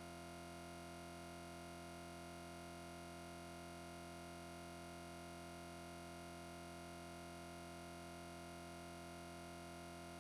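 Faint, perfectly steady electronic hum made of several held tones, unchanging throughout.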